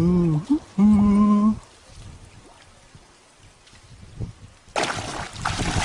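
A person's brief vocal sound, then a held hum about a second in; from near the end, water splashing and sloshing as someone moves through it.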